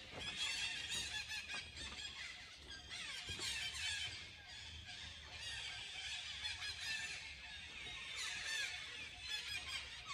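A chorus of many birds chirping and whistling at once, short overlapping calls going on without a break.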